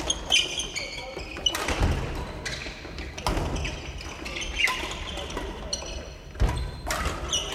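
Badminton practice: rackets striking shuttlecocks in a string of sharp hits, with shoes squeaking and thudding on a wooden sports-hall floor.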